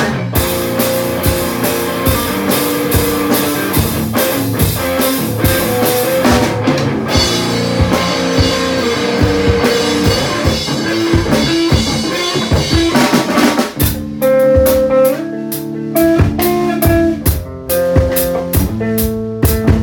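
Instrumental break of a song played on drum kit and guitar. About fourteen seconds in the arrangement thins out to separate drum hits over held notes.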